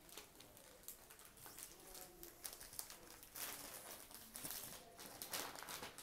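Silk stole rustling faintly as it is handled and spread out, with small clicks and two louder swishes of the fabric in the second half.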